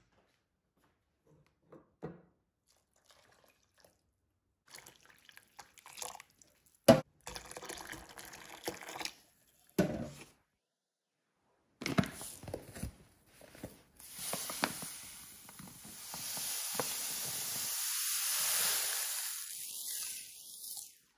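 A few knocks and clatters of kitchen utensils, then liquid pouring and splashing into a large stainless-steel mixing bowl of batter for about seven seconds in the second half.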